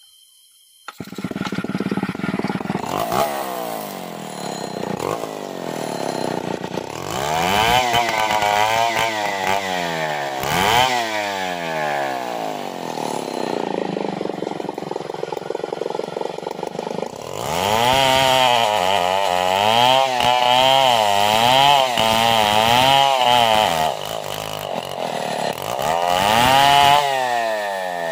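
Gasoline chainsaw cutting through a matoa hardwood log. The engine picks up about a second in, and from there its pitch rises and sags over and over, about once a second, as the chain bites into the wood under load and is eased back.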